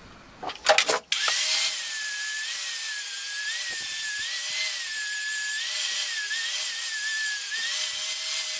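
Angle grinder with a flap disc grinding a steel dagger blade clamped in a vise, polishing down a fresh weld. After a few knocks, it switches on about a second in and runs steadily, its whine dipping and rising a little as it is pressed against the steel.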